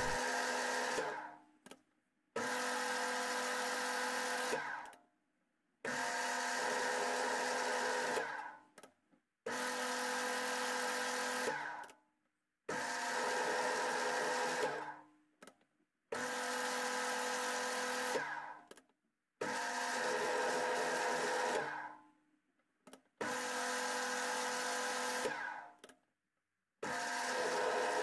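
Paulimot PM2500 benchtop metal lathe running in short bursts while single-point threading a steel bolt: eight runs of about two and a half seconds each, a steady motor hum and gear whine that starts abruptly and tails off at the end. Silent gaps come between runs, with an occasional click in them.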